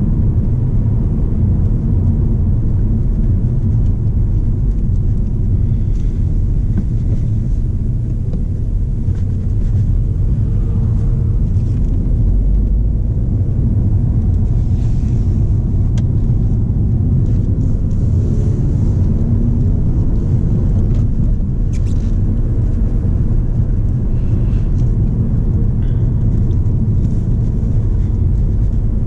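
The cabin of a 2013 Volkswagen Passat 2.0 TDI on the move: the four-cylinder turbodiesel runs under a steady low rumble of road and tyre noise, its engine note shifting a little now and then.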